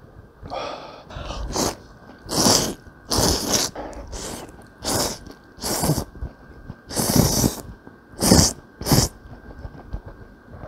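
A person slurping noodles from a bowl of soup with chopsticks: a series of about nine loud slurps, each under a second, at irregular intervals.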